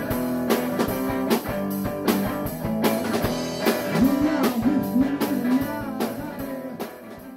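Background music with a steady beat, fading out near the end.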